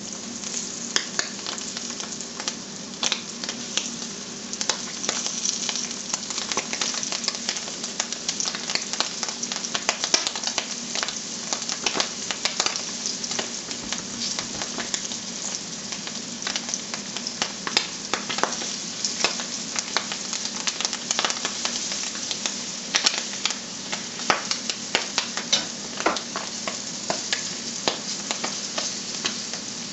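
Flour-dredged rabbit livers frying in hot oil in a nonstick skillet: a steady sizzle with frequent sharp pops and crackles, over a faint low hum.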